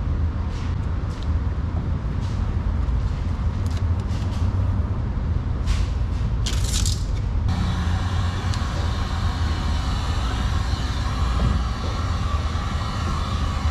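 A steady low rumble throughout, with short rustles of vinyl wrap film being handled. About halfway through a heat gun switches on and blows with a steady hiss.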